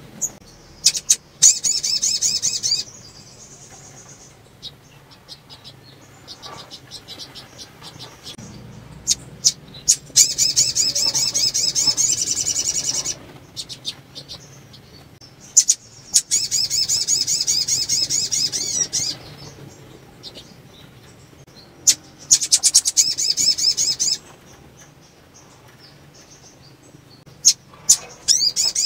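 Caged female sogon (sogok ontong) calling in about five bursts of fast, high, trilled notes, each one to three seconds long, with sharp single chips before the bursts and quieter gaps between. This is the call of a female in breeding condition, used to spur males to sing.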